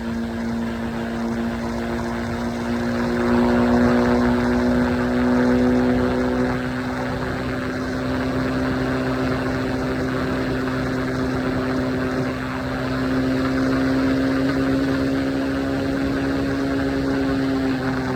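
Triumph Scrambler 400X's single-cylinder engine running at a steady highway cruise, its droning note holding a nearly constant pitch with only slight drifts, over a steady rush of wind and road noise.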